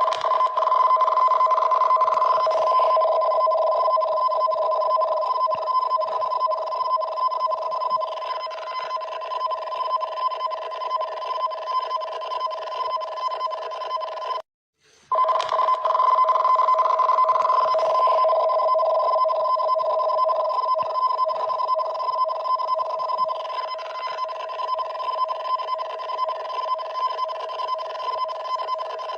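Japanese tsunami-warning emergency alert alarm: two steady tones sounding together with a fast flutter. The alarm cycle stops for about half a second roughly halfway through and then repeats.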